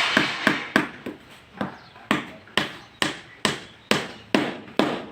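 Hammer blows in a steady run, as when driving nails: quick at first, then settling to about two strikes a second, each a sharp knock with a short ring, stopping near the end.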